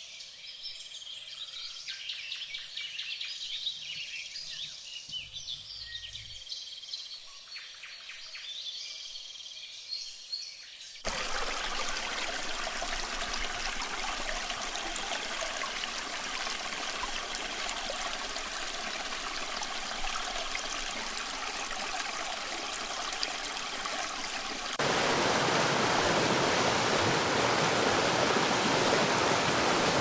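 Forest ambience of insect and bird chirps. About eleven seconds in, it cuts suddenly to a shallow stream running over rocks. Near the end, it jumps to the louder rush of a waterfall pouring into a rock pool.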